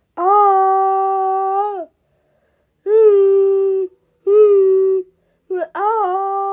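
A high voice humming or holding one steady note, four times over, each for about a second or more, with short silent gaps between; a brief blip comes just before the last note.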